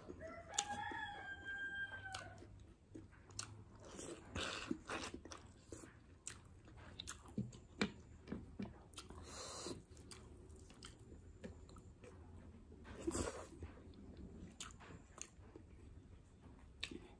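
A person chewing and biting food, with repeated crunches and wet mouth clicks. A rooster crows once about a second in.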